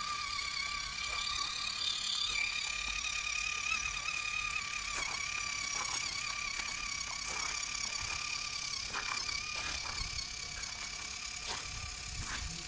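Steady, slightly wavering high whine of a small electric motor, with scattered short clicks.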